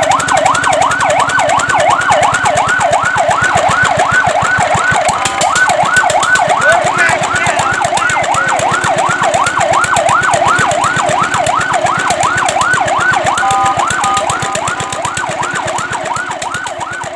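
Fire truck siren on a fast yelp, its pitch rising and falling about three times a second. It is broken twice by short steady tones and grows fainter over the last few seconds.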